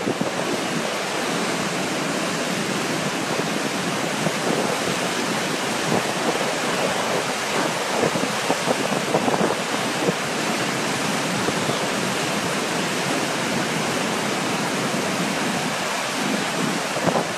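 Rhône floodwater churning in turbulent eddies below a dam: a loud, steady rush of water.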